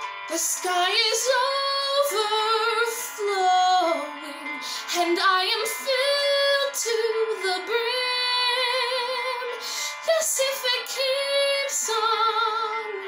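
A young woman singing a musical-theatre ballad solo, with vibrato on held notes, over steady sustained accompaniment chords.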